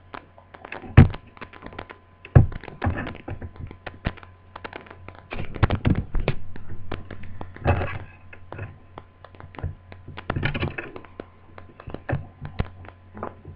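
Plastic clicks, taps and knocks from handling a laptop AC adapter and its clip on a workbench, with two sharp thunks about one and two and a half seconds in and stretches of quicker rattling clicks later.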